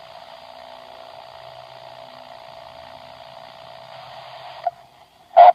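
Steady thin static hiss with a faint steady hum through it, sounding like a telephone or radio line. It cuts out briefly near the end, and a short loud burst comes right before the end.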